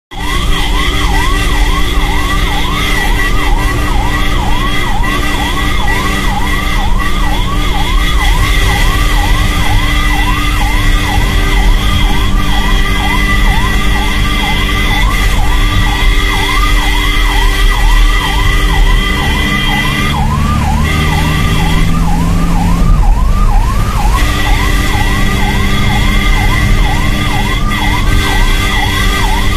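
Ambulance siren wailing in fast, evenly repeating rise-and-fall sweeps, with steady higher tones alongside that break off briefly about two-thirds of the way in. The vehicle's engine runs underneath, its note rising for a few seconds at the same point.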